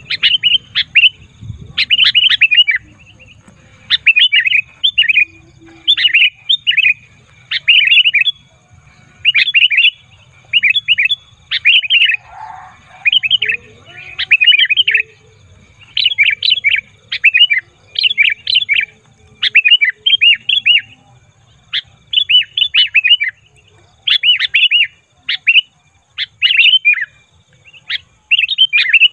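Sooty-headed bulbul (kutilang) calling over and over, a busy, noisy (ribut) run of short clusters of quick notes, roughly one cluster a second with brief pauses between. This is the kind of call used as a lure to draw wild bulbuls in.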